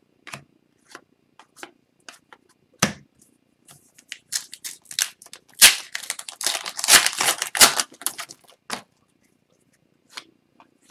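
Trading cards being handled with scattered light clicks and slaps, then a foil Upper Deck hockey card pack being torn open, a dense stretch of crinkling and tearing from about four to eight and a half seconds in, before a few more clicks as the cards are handled.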